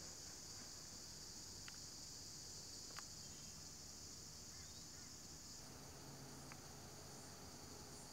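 Faint, steady high-pitched chorus of insects, with a few faint clicks, the sharpest about three seconds in.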